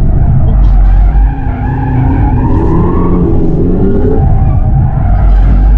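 Hyundai Ioniq 5 N electric car driven hard around a gymkhana cone course, its tyres squealing and skidding through the turns over a heavy low rumble.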